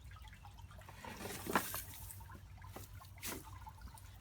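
Dry straw and twigs rustling and crackling as they are handled and laid for a campfire, with two louder crackles about one and a half and three seconds in.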